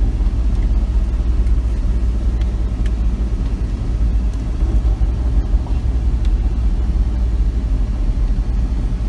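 Chevrolet Silverado pickup running and rolling slowly, heard from inside the cab as a steady low rumble.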